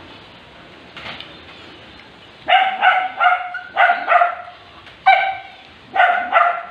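A small dog yapping: about ten short, high-pitched barks in quick runs of two or three.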